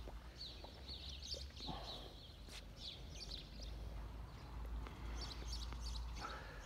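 Small birds chirping over and over in short high calls, with a few light footsteps or clicks on stone paving and a steady low rumble underneath.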